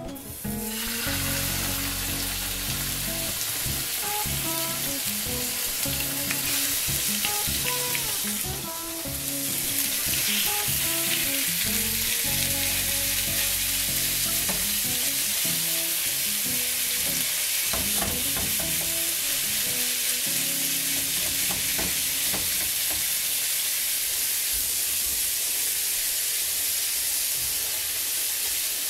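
Food sizzling and frying in a hot pan, a steady loud hiss that dips briefly about nine seconds in, with quiet guitar music underneath that fades out near the end.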